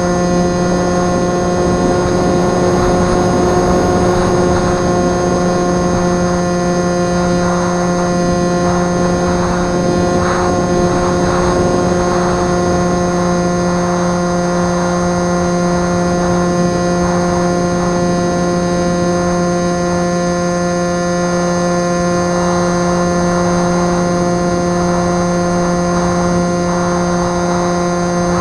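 A steady, unchanging electrical hum with several even overtones, over gusty wind noise on the microphone.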